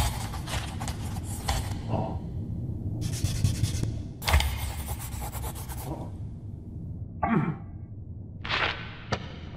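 Cartoon sound effects: several bursts of rubbing or scraping noise, a short falling glide in pitch about seven seconds in, and a few sharp clicks near the end, over a steady low rumble.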